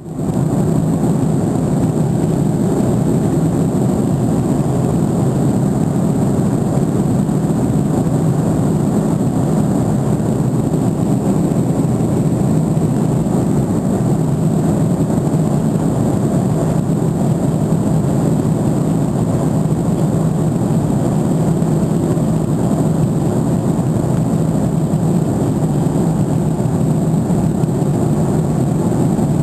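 Jet airliner cabin noise in flight at altitude: the steady, even rush of engines and airflow heard from a window seat, heaviest in the low range, with a thin steady high tone above it.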